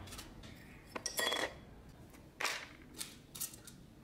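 Small metal drill parts being dropped and set into a plastic basin: a handful of separate clinks and clatters, some with a brief metallic ring.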